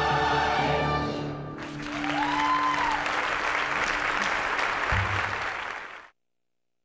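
A choir and orchestra hold the final chord of a musical number, which ends about a second and a half in. A theatre audience then applauds until the sound cuts off abruptly near the end.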